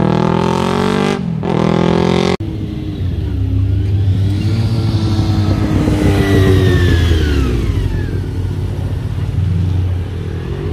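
Motorcycle engines passing close by on a road, one clip cut abruptly into the next about two seconds in. A fully-faired sportbike's engine grows louder as it approaches, then its pitch falls steeply as it goes past.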